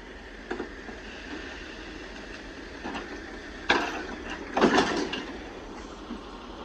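Heavy loading machinery running steadily while cedar poles are handled, with a few sharp metal-and-wood clunks and knocks, the loudest a little past the middle.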